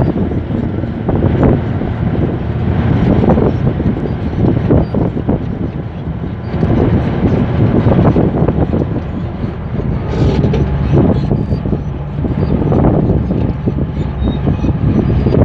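Komatsu D155A crawler bulldozer running under load as it pushes a blade full of sand: a loud, continuous diesel rumble that rises and falls unevenly.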